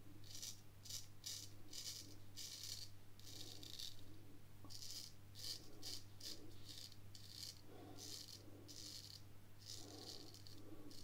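Drew Dick 8/8 smiling straight razor scraping through lathered stubble in short strokes, about two a second, each a faint crisp crackle of whiskers being cut. A steady low hum runs underneath.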